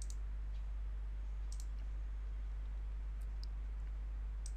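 Several light computer mouse clicks, a couple coming in quick pairs, over a steady low electrical hum.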